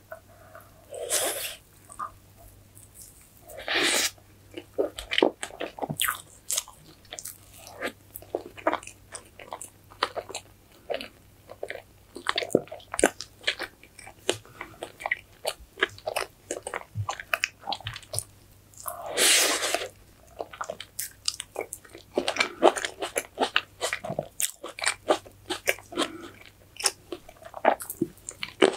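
Close-miked eating sounds: biting into and chewing strawberry fresh-cream cake and green grapes, a dense run of wet mouth clicks and crunches. A few longer, louder bursts come about a second in, about four seconds in and near the twenty-second mark.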